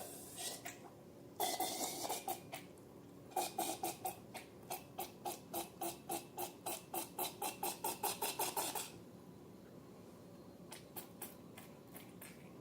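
Slime being squeezed and poked by hand: a short squelching burst, then a quick regular run of wet squishes, nearly four a second, for about five seconds, and a few faint clicks near the end.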